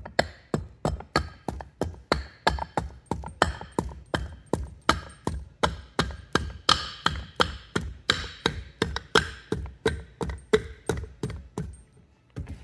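A steady run of sharp knocks, about three a second, from a hand tool working on a piston at the bench. The knocks stop near the end.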